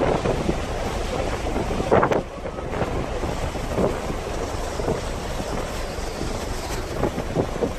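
Wind buffeting the microphone in uneven gusts, the strongest about two seconds in, over a steady low rumble and rush of water from a vessel under way.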